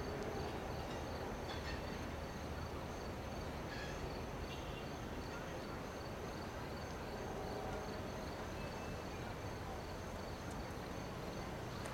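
Insects chirping in a fast, regular pulsing rhythm, several pulses a second, over a steady low rumble from a freight train rolling away.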